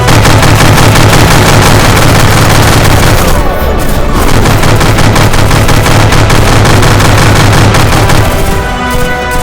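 Sustained rapid machine-gun fire sound effects with booms over loud music, very loud throughout; the firing dies away about eight and a half seconds in, leaving the music.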